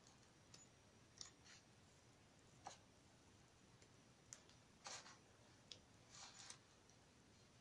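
Faint paper sounds of a hardback book's pages being turned and riffled: a string of brief flicks and rustles, irregularly spaced, the clearest about five seconds in.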